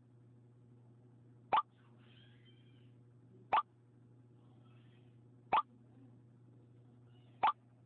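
iPhone Messages incoming-message sound: four short pops about two seconds apart, each one a new message bubble arriving in the chat.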